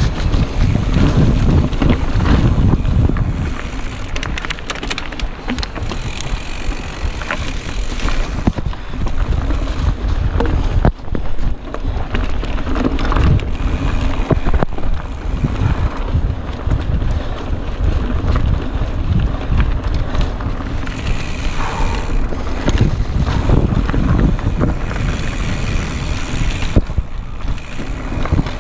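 Mountain bike descending rocky singletrack: wind buffeting the handlebar-mounted camera's microphone in a steady low rumble, with frequent short rattles and knocks from the tyres and bike jolting over rocks.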